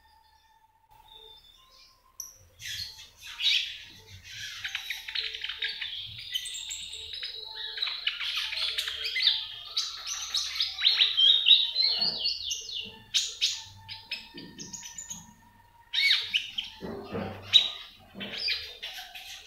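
A caged konin parakeet chattering: fast, high chirps and trills that begin about two seconds in, run almost without a break for about ten seconds, pause briefly, then resume in shorter bursts.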